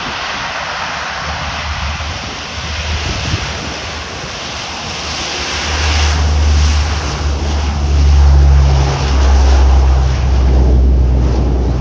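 C-130 Hercules four-turboprop engines and propellers running, a steady noisy drone that grows louder and deeper about halfway through as the aircraft comes closer or powers up.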